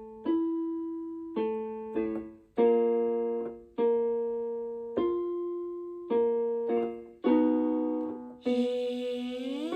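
Keyboard playing piano-voiced chords for a vocal warm-up, about nine chords struck one after another, each ringing and fading. Near the end a voice comes in on a buzzy 'zh' sound and begins to slide up in pitch.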